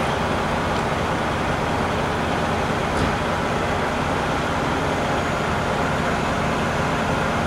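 A large engine running steadily, a constant low drone.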